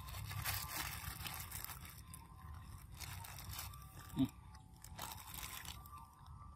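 A macaque biting and chewing juicy orange-fleshed fruit close to the microphone, with wet, irregular crunching. About four seconds in there is one short, low sound that falls in pitch, the loudest moment.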